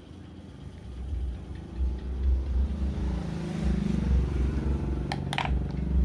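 A motor vehicle's engine running steadily from about two and a half seconds in, over a low rumble. Two or three light clicks of small parts being handled and set down about five seconds in.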